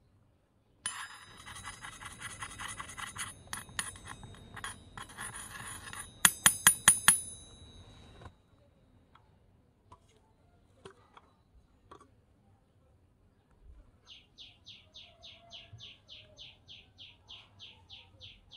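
A metallic, bell-like ringing rattle for several seconds, ending in about six loud ringing strikes. Later comes a steady run of short high chirps, about four a second.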